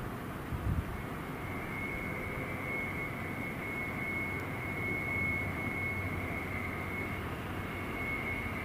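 A train running past: a steady low rumble with a steady high-pitched whine that sets in about a second in, and a short thump near the start.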